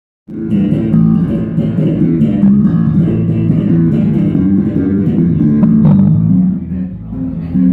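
Electric bass guitar played solo and amplified, a continuous flow of chords and melody notes in the bass's low and middle register, coming in abruptly at the start.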